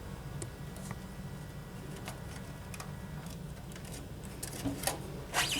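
Faint clicks and handling of small plastic parts as a ribbon cable connector is fitted inside a cigarette-rolling machine, with a few sharper clicks near the end, over a steady low hum.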